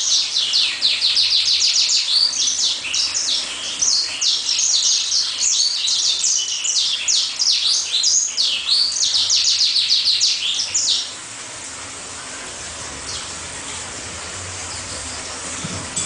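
Caged songbird singing a long, fast run of high, rapidly repeated notes and trills that stops about eleven seconds in.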